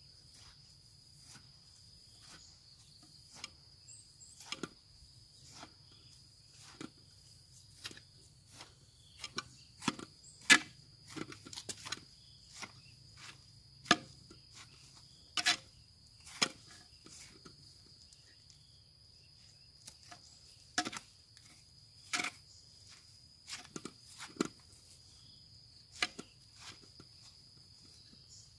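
A small hand trowel digging and scraping through dry potting mix of soil, rice husks and compost, being turned over to blend it evenly: irregular scratchy strokes and knocks, a few louder than the rest. A steady high insect trill runs underneath.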